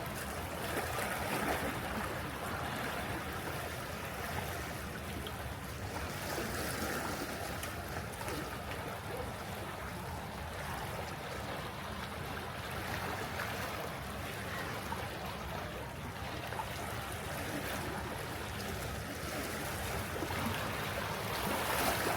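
Sea waves washing against the shore, a continuous rushing wash that swells and ebbs every several seconds.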